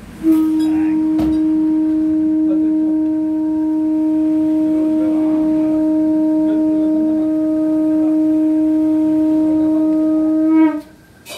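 Conch shell (sangu) blown in one long, loud, steady note lasting about ten seconds, flaring briefly just before it stops.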